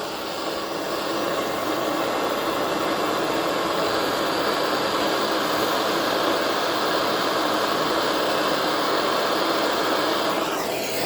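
Steady rushing hiss of a torch flame heating a brass joint for soldering. It eases off near the end.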